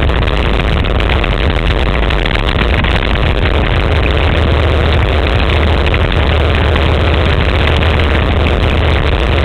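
Quad bike (ATV) engine running steadily on the move, a constant low hum under a dense rushing noise, heard through a helmet-mounted GoPro.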